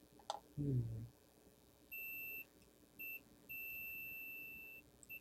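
Multimeter continuity tester beeping with a steady high tone as the probes touch connected points on a circuit board: a half-second beep about two seconds in, a short one, then a long beep of over a second and a brief blip at the end. The beeps mark continuity between ground points, which are all joined by ground planes. A short murmur comes under a second in.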